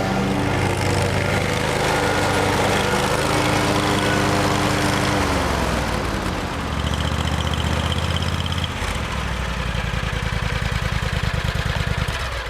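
Kawasaki FX850V V-twin engine of a Wright stander zero-turn mower running at high throttle, then throttled down about five seconds in to a lower, pulsing idle.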